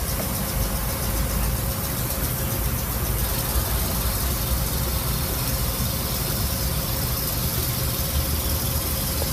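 Steady low background rumble with a faint constant hum, unchanging throughout.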